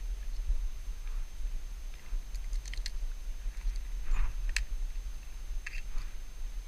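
A few sharp metallic clicks from a shotgun being handled, a cluster of them about halfway through and single ones later, with soft rustles over a steady low rumble.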